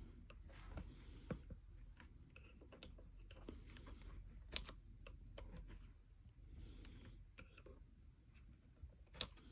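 Faint, irregular clicking of a metal loom hook against the plastic pegs of a round knitting loom as loops of yarn are lifted over the pegs, with soft yarn rustling in between. One click is a little louder about four and a half seconds in, and another comes near the end.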